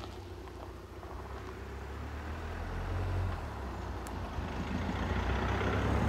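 Low rumble of a road vehicle running, slowly growing louder as it comes nearer.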